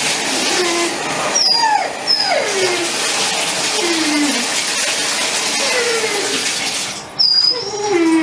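Great Dane puppy whining in drawn-out, falling whimpers, about six of them, over the steady hiss of bath water running and being poured on it. The water stops about a second before the end, leaving the last whine clear.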